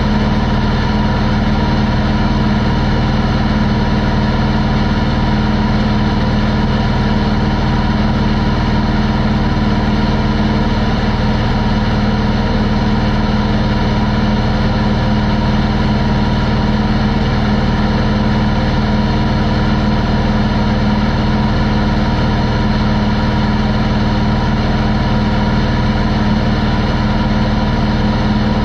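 Pietenpol Air Camper's Corvair air-cooled flat-six engine and propeller running steadily in level cruise flight, a constant drone that holds one pitch, mixed with wind rush.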